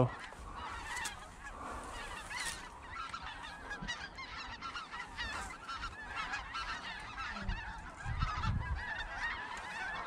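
A large flock of snow geese calling all at once: a dense, continuous chatter of high, overlapping yelps.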